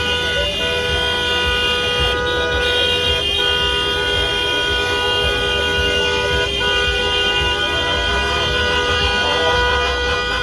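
Car horns held down continuously, several steady tones sounding together without a break over the low rumble of slow traffic.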